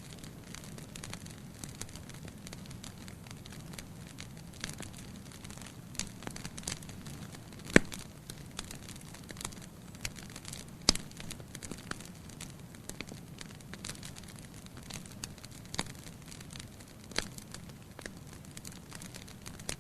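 Wood fire burning in a fireplace: a steady low rumble with scattered crackles and pops, two sharp pops standing out about eight and eleven seconds in.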